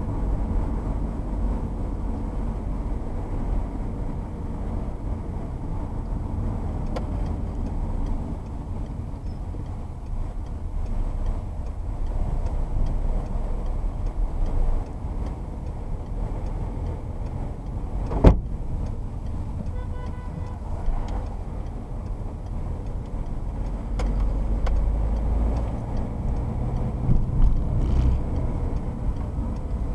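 Car road and engine noise heard inside the cabin while driving at speed, a steady low rumble of tyres and engine that grows louder over the last few seconds. A single sharp knock comes a little past the middle.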